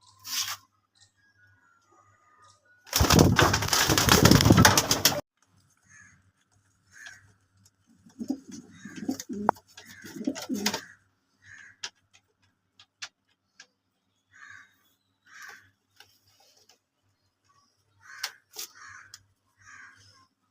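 Domestic pigeons cooing: a run of low, throaty coos in the middle, with short higher calls recurring throughout. A loud two-second burst of rustling noise comes about three seconds in.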